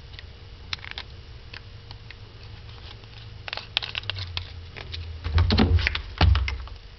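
Hands handling parts of a car amplifier wiring kit: light plastic clicks and taps as a clear inline fuse holder is fiddled with and set down, then louder knocks and rustling as coils of wire are pulled from a cardboard tray, a little after five seconds in. A faint steady hum runs underneath.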